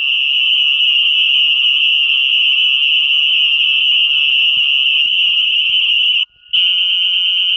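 A loud, steady, shrill high-pitched tone with a slight warble. It cuts out briefly about six seconds in, then comes back with a quicker warble.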